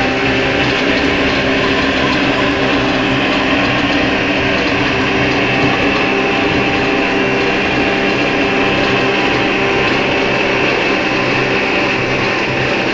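Home-made waste motor oil heater running: a steady mechanical hum with a rushing sound and several constant tones, unchanging in level.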